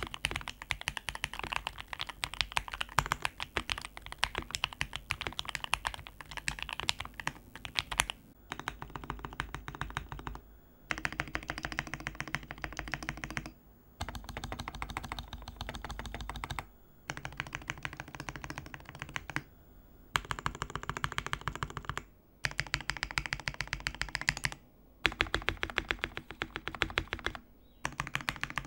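Fast typing on a PG67 mechanical keyboard with lubed and filmed Equalz Tangerine linear switches: dense key clacks under plastic keycaps. After about 8 seconds the typing comes in bursts of a few seconds with brief pauses between them.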